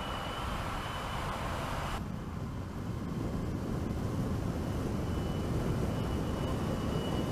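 Mercedes-Benz GenH2 fuel-cell electric truck driving by: tyre and road rumble with a faint steady high whine. The sound cuts abruptly about two seconds in to a duller rumble with less hiss.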